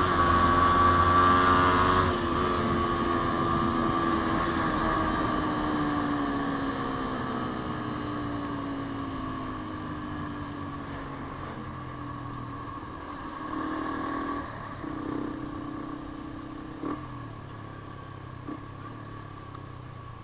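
Yamaha Sniper 150 single-cylinder four-stroke engine through an aftermarket JVT exhaust pipe, high in the revs at first, then dropping steadily in pitch and loudness as the bike slows, settling to a lower, quieter run near the end with a few short clicks.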